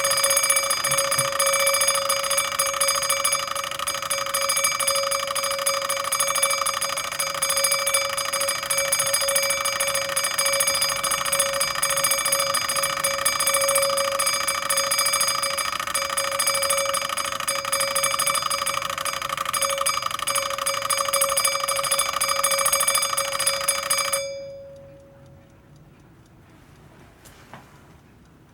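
SEIKO Soft & Loud two-jewel wind-up alarm clock's alarm ringing loudly and steadily with a fast metallic rattle. It cuts off about 24 seconds in with a brief ring-out, leaving the clock's faint ticking.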